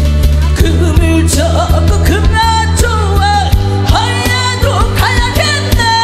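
A woman singing a Korean pop ballad through a handheld microphone over a backing accompaniment with a steady drum beat and bass. A long held note begins near the end.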